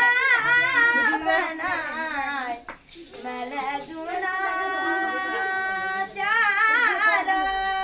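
A young voice sings a Kumaoni Holi song solo, holding long notes with a wavering, ornamented pitch. It stops briefly for breath about three seconds in.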